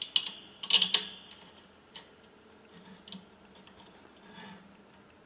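Small metal clicks and clinks of a steel bolt being fitted by hand through a camera mount's metal clamp pieces, a quick cluster in the first second, then a few faint ticks and a soft rustle.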